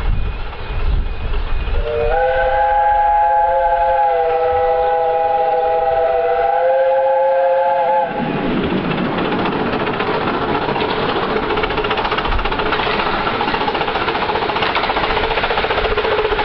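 A miniature steam locomotive's chime whistle sounds one long chord of several notes, starting with a short upward slide, for about six seconds. Then a steady rushing train noise takes over.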